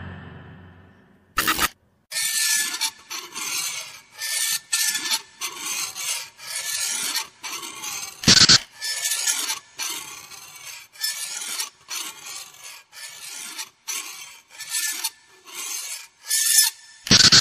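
Rhythmic scraping and scuffing, about two a second, in step with someone walking up gritty concrete stairs, broken by three louder knocks.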